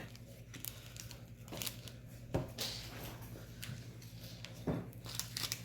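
Trading cards being handled and flipped through: a few soft slides and light taps over a steady low hum.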